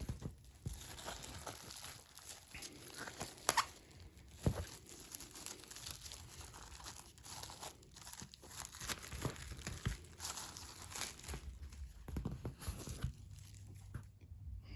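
Plastic wrapping on a pack of comic books being torn open and crinkled by hand: irregular rustling and crackling, with a couple of sharper rips about four seconds in.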